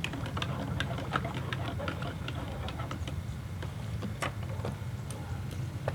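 Dishes and utensils being handled in play dish-washing: light, irregular clicks and taps over a steady low hum.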